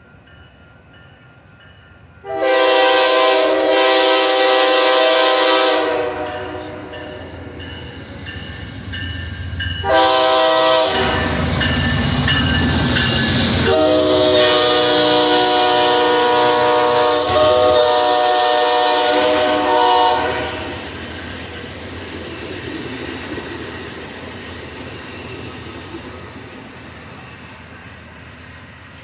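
Amtrak passenger train's locomotive horn sounding a chord, a long blast of about four seconds, then a short blast, then a long blast of about seven seconds. Between the blasts the locomotive passes close with a heavy low rumble, and after the last blast the passenger cars roll by, the sound slowly fading.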